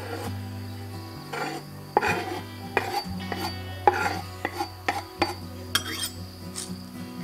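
Knife blade scraping chopped jalapeño off a wooden chopping board into a bowl: a string of short, irregular scrapes and taps over steady background music.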